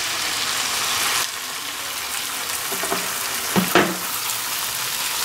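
Beaten egg poured into a hot buttered frying pan, sizzling steadily; the hiss is a little louder for about the first second.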